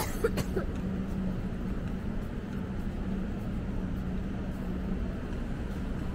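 Steady low rumble of outdoor city ambience with a constant low hum running through it, and a couple of brief clicks about half a second in.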